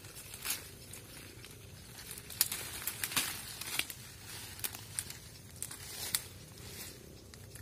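Leafy coffee-bush branches rustling and crackling as they are pruned, with irregular sharp snaps of twigs.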